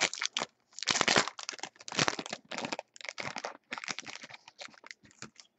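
Foil trading-card pack wrapper being torn open and crumpled by hand: irregular crinkling and tearing, loudest about one and two seconds in, trailing off near the end.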